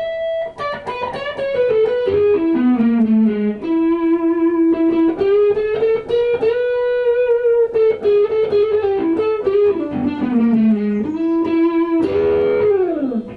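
Electric guitar playing a single-note lead melody, with slides between notes and a long held note with vibrato about halfway through. Near the end a fast downward slide leads into a sudden drop-off.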